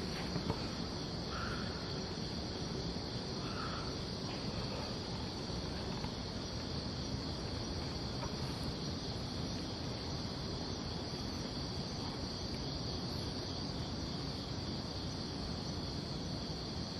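A steady chorus of night insects, a continuous high trilling that never breaks, over a low, even background noise.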